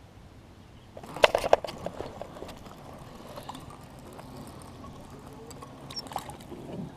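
A quick cluster of sharp knocks and clicks about a second in, then scattered lighter clicks, with a few more knocks near the end.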